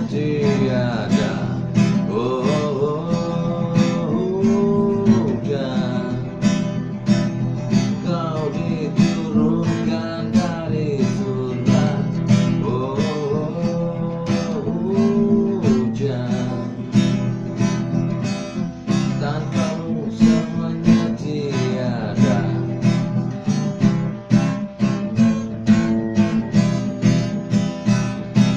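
Acoustic guitar music, strummed in a steady rhythm with a picked melody line over it.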